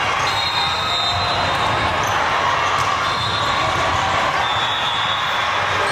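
Steady crowd and player noise echoing in a gymnasium during indoor volleyball play, with occasional ball thuds.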